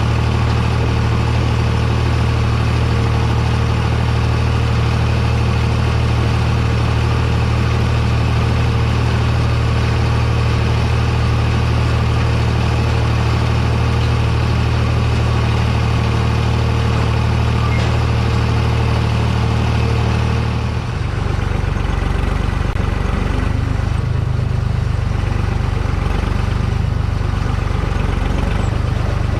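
Tractor engine running steadily under the cab's mic while working a bale stacker in the hay field. About two-thirds of the way in, its steady note changes abruptly and becomes rougher and less even.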